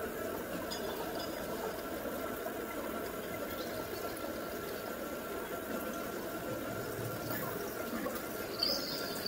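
Running water trickling and bubbling in a steady, even stream, with a faint steady tone above it.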